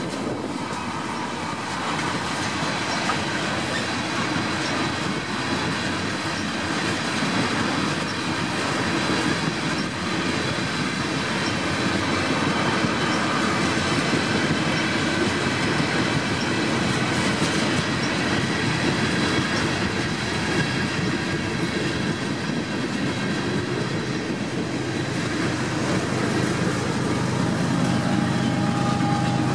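Freight train tank cars and boxcars rolling past, a steady rumble of steel wheels on rail with thin high-pitched wheel squeal riding over it. It grows somewhat louder toward the end.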